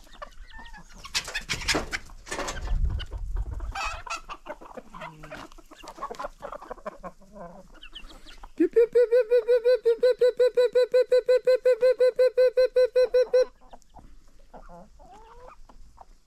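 Hens clucking, then from about eight and a half seconds a loud, fast call of evenly repeated notes at one steady pitch, about eight a second for some five seconds, which lures the chickens and ducks.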